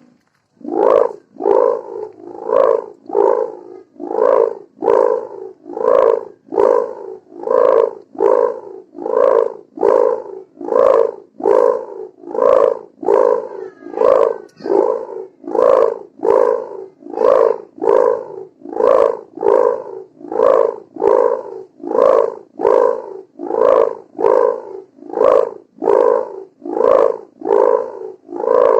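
Kite hummer (sendaren) made of mika plastic film joined to gift ribbon, buzzing in a snoring-like drone that swells and fades a little more than once a second.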